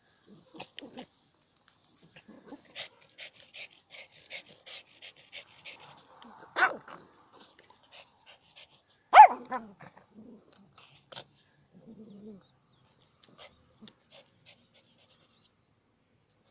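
Small dog worrying a stick in dry grass: scattered crunching and crackling throughout. Two sharp barks, about two and a half seconds apart, the second the loudest, and a short low growl a few seconds later.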